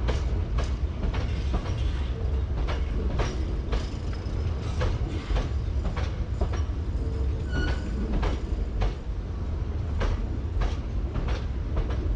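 Hankyu 8000 series electric train rolling slowly over points and rail joints, with a steady low rumble and a run of uneven wheel clicks, about one or two a second.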